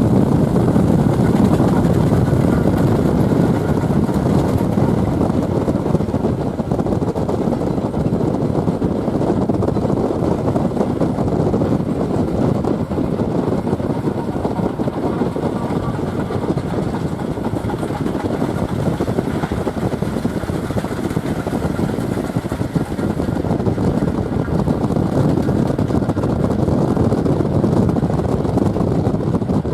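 Steady, loud rushing noise of a vehicle in motion, with no clear beat or break.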